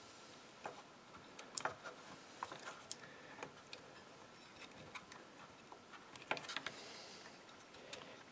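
Faint, irregular clicks and small taps of fingers and needle-nose pliers on plastic and metal as a fuel line is fitted to a chainsaw carburetor. There are a few sharper clicks around two and three seconds in, and a quick cluster of clicks about six seconds in.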